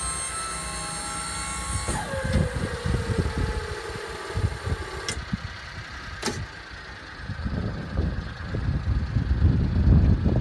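Mitsubishi Minicab dump truck's small engine idling under an uneven low rumble. A whine with several steady tones cuts off about two seconds in, and a lower tone then slides slowly down in pitch for a few seconds. Two sharp clicks come near the middle.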